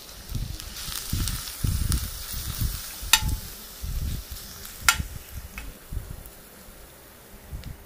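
Crushed garlic sizzling in hot oil in an enamel pan while a metal spoon stirs it, with two sharp clinks of the spoon against the pan, about three and five seconds in. The sizzle is strongest in the first few seconds and dies down after.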